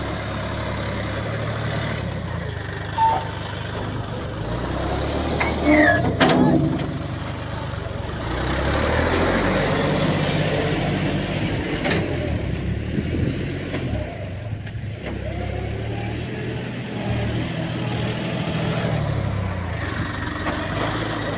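Diesel engine of a John Deere tractor with a front loader running steadily, growing louder for a few seconds about eight seconds in before settling back. A sharp click is heard about six seconds in.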